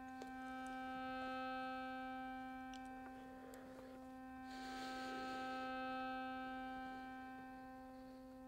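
A faint, steady hum of several even, unchanging tones, with a soft rush of noise for a second or two around the middle.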